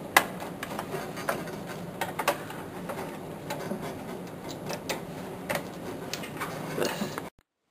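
Small irregular clicks and taps of a cable being handled and plugged into a hard drive inside a desktop computer case. The sound cuts off abruptly near the end.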